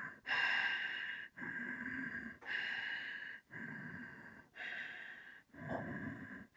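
A man breathing steadily and audibly in and out, each inhale and exhale lasting about a second, with a short pause between them.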